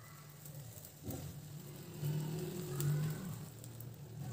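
Faint sizzling of moong dal batter as it spreads into hot oil in a nonstick pan, under a low steady motor-like hum that swells about two seconds in.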